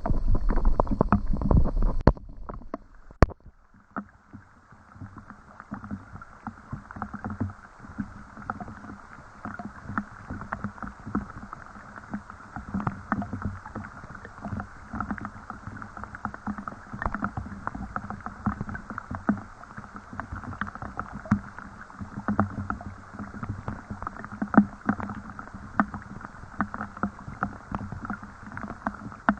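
Steady rain, a dense crackle of many close drops landing. A louder low rumble with a faint high whine cuts off suddenly about two seconds in.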